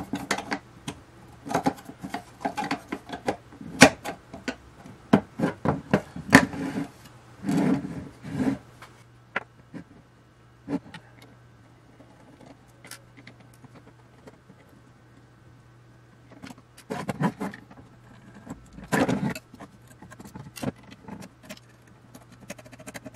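Sharp clicks, knocks and metallic clinks of machined aluminium panels and small screws being handled during the disassembly of an electronics control box. The clicks come thick and fast for the first several seconds, thin out in the middle, and bunch up again twice near the end.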